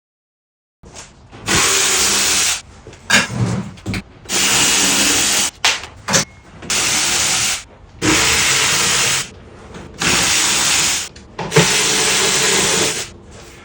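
An electric motor run in six short bursts of about a second each, with brief pauses between.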